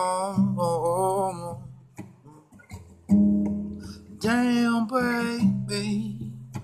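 Acoustic guitar chords strummed and left ringing, with a fresh strum about three seconds in. A man sings long, wavering notes over them at the start and again about four seconds in.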